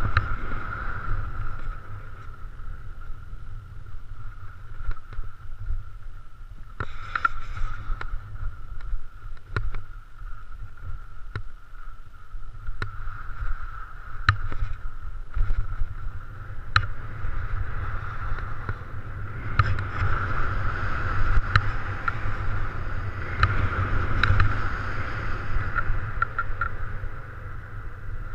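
Skis sliding and hissing over snow on a downhill run, with a steady low wind rumble on a helmet-mounted camera and scattered sharp clicks; the hiss grows louder about two-thirds of the way through.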